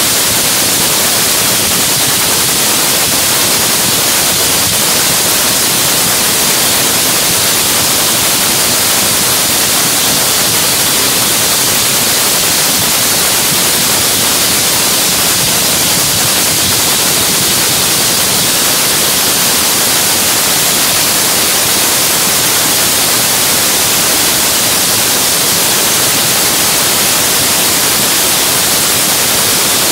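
Top Fuel dragster's supercharged nitromethane-burning Hemi V8 running during its pit warm-up, heard as a loud, unchanging, hiss-like wash of noise with no rise or fall.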